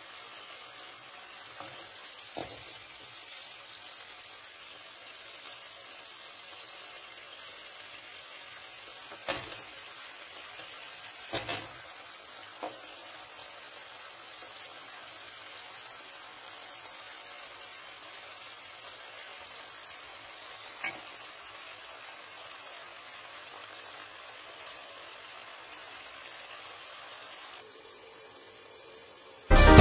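Chicken sauté sizzling faintly in the pan while a spoon scoops it onto a plate, with a few knocks of the spoon against the pan and plate. Loud music starts right at the end.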